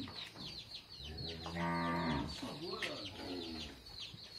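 A cow moos once, a low call about a second long starting about a second in, over the continual high, rapid peeping of a hen's chicks.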